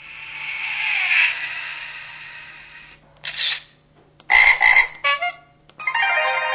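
Preset sound effects played through a LG-LP3000 mobile phone's speaker: a whoosh that swells and fades, then a string of short separate effects, including two quick pulses and a longer layered tone near the end.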